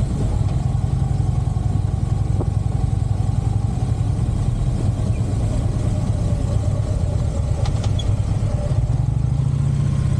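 Harley-Davidson motorcycle's V-twin engine running with a steady low rumble while being ridden.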